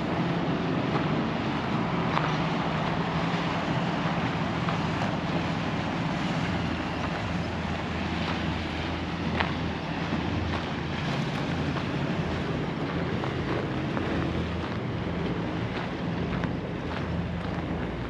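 Steady outdoor noise of wind on the microphone and rushing river water, with a steady low engine hum underneath.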